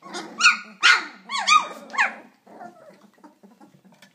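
Twenty-day-old flat-coated retriever puppies yapping and yelping while they play, about half a dozen short high calls in the first two seconds, many dropping in pitch. After that there is only faint scuffling.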